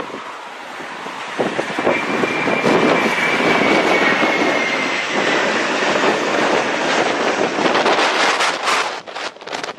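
Jet airliner passing close by, its engine noise swelling about a second in, with a high whine that drops slightly in pitch as it goes by. Gusty wind buffets the microphone near the end.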